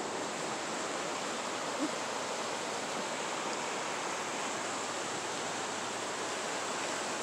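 Steady rush of the French Broad River flowing fast over shallow rapids, an even wash of water noise that holds at one level throughout.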